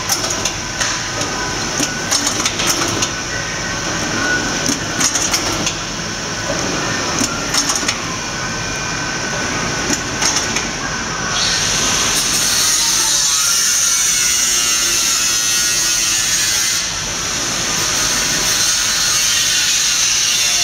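Bercomex flower-bunching line running: belt drives whirring, with many sharp clicks and clacks from the machinery. About eleven seconds in the clicking mostly stops and it becomes a steadier whir with a high hiss.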